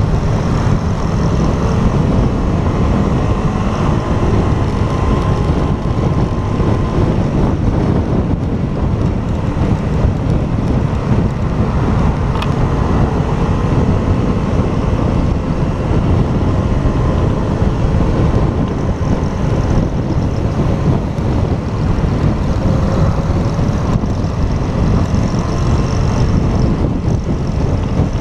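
Motorcycle riding along at steady speed: the engine runs with its note drifting slightly up and down under heavy wind rumble on the camera microphone.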